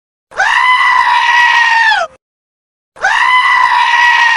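A bleat played twice as a notification tone. The two calls are identical, each nearly two seconds long, held at one steady pitch and dropping at the very end.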